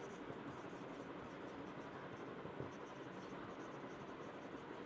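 Faint sound of a dry-erase marker writing words on a whiteboard.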